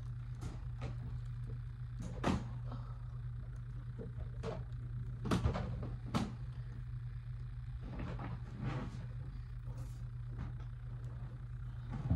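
Scattered rustles, clicks and knocks as a pet cage's pan is emptied into a plastic bag, the loudest a few sharp knocks near the middle, over a steady low hum.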